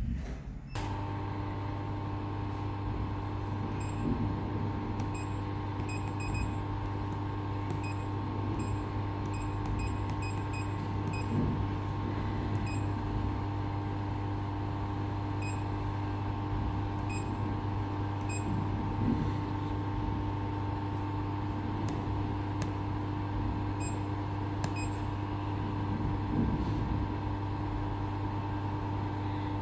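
Hand-held laser cleaning machine running after switch-on: a steady hum that starts about a second in and holds unchanged. Faint short beeps come at irregular moments as its touchscreen control panel is tapped.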